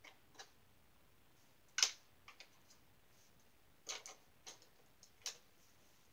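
Scattered small clicks and taps of brushes and paint tubes being handled on a cluttered painting table. The sharpest comes about two seconds in, with a cluster near four seconds.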